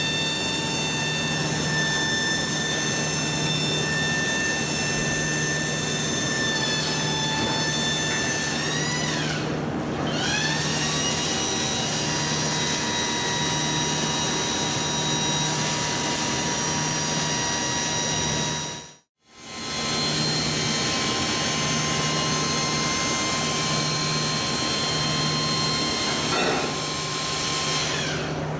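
Hydraulic pump on a hauler bed running with a steady whine of several high tones over a pulsing hum; about nine seconds in it winds down and straight back up, and it drops out for a moment about two-thirds of the way through.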